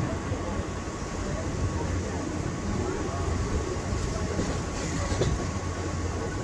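Train running on the tracks: a steady rumble of wheels on rail, with a few faint clicks about five seconds in.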